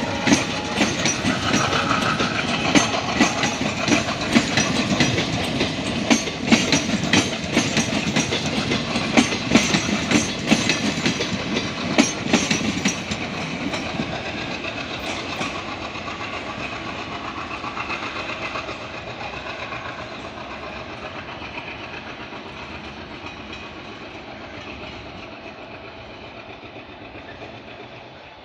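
Diesel passenger train rolling past, its wheels clicking loudly and rhythmically over the rail joints for about the first thirteen seconds. The clatter then fades steadily as the train moves away.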